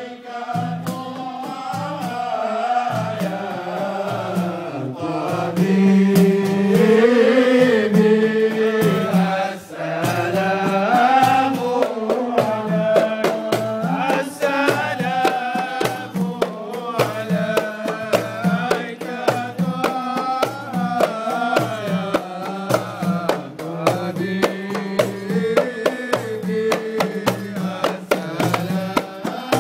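Mawlid devotional singing by men, accompanied by hand-struck frame drums beating a steady rhythm of about two strokes a second.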